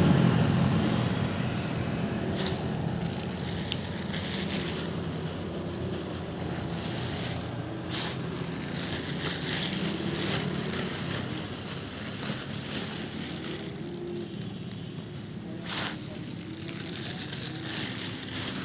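A passing motorcycle's engine fading into the distance over the first few seconds, then steady roadside background noise with a faint low engine hum and scattered light crackles.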